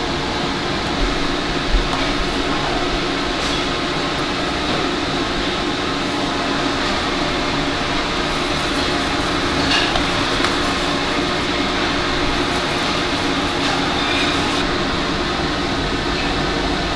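Steady hum and rushing noise of a ventilation fan, with a few faint clicks.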